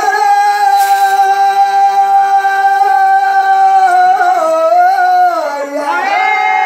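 Devotional music with one long held note. It wavers and slides downward about four to five seconds in, then settles on a new held note near the end. There is no drumming.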